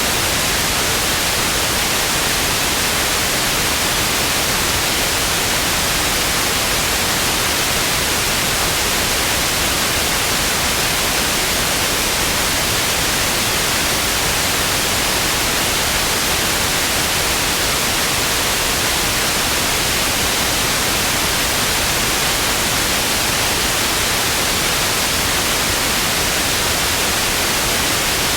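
Television static: a steady, loud hiss of white noise, even and unchanging.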